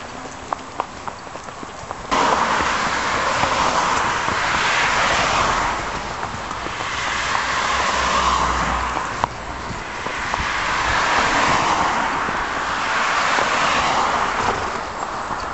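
Road traffic passing: several vehicles swell up and fade away one after another, with a deeper rumble from a heavier vehicle partway through. In the first two seconds, before the traffic noise comes in suddenly, a horse's hooves clop on the road.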